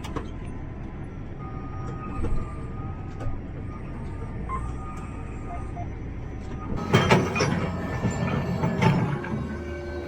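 Farm tractor engine running steadily, heard inside the cab. From about seven seconds in, louder rattling and clattering strokes come over the engine noise.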